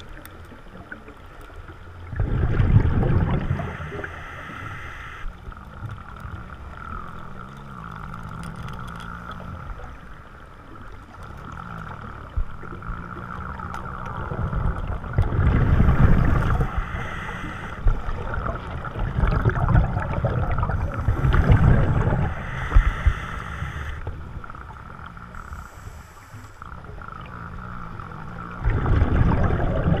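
Scuba diver breathing through a regulator underwater: loud gurgling rushes of exhaled bubbles come every few seconds, with quieter stretches between them.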